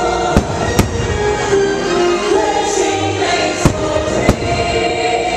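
Fireworks going off in four sharp bangs, two close together about half a second in and two more later, the third the loudest, over the show's music with a choir singing.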